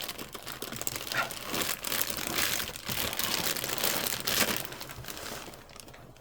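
Plastic packaging crinkling and rustling as an AIO liquid cooler is pulled out of its box, a dense run of crackles that thins out near the end.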